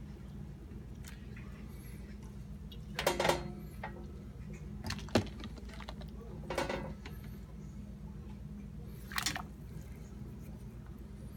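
Four brief clatters and clinks of kitchen utensils and cookware, one of them a sharp click, over a steady low hum.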